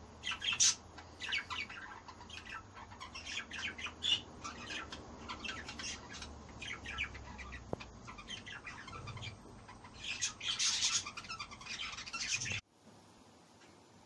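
Aviary birds, a cockatiel and budgies, chirping in many quick short calls, busiest and loudest about ten to twelve seconds in; the sound cuts off suddenly near the end.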